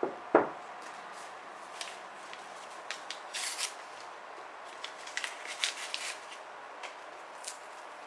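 A ceramic mug set down on a wooden table with a single knock just after the start, then a paper tea-bag wrapper torn open and crinkled in short bursts.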